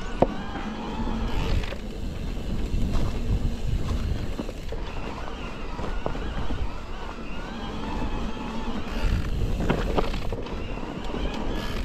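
Electric mountain bike's motor whining, its pitch rising and falling, over a steady low rumble from the ride. A single sharp click about a quarter second in.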